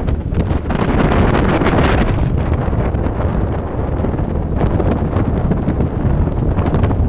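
Wind buffeting the microphone on the open deck of a moving ferry, loud and surging in gusts every couple of seconds.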